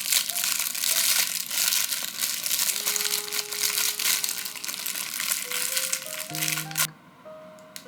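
Packaging being crinkled and rustled in the hands, a dense crackle that stops abruptly near the end, over light background music with a simple melody.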